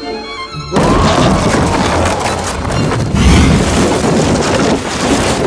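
Music cuts off less than a second in, and a loud animated-film magic sound effect takes over: a sudden rushing noise with a deep rumble that lasts about four seconds and eases off near the end.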